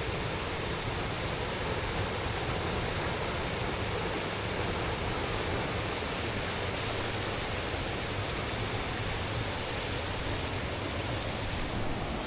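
A large waterfall: the falling water makes a steady, even rushing noise that does not let up.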